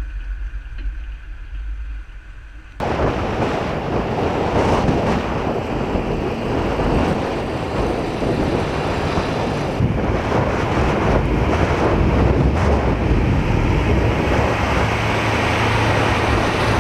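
A low engine rumble heard from aboard a moving military truck column. About three seconds in it jumps abruptly to a loud column of Tigr-M and Typhoon armoured vehicles driving past, engine and tyre noise heavily buffeted by wind on the microphone.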